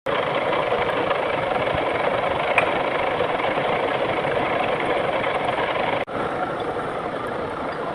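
Lathe running with a steady mechanical noise and a single click about two and a half seconds in. The noise cuts out for an instant around six seconds, then carries on slightly quieter.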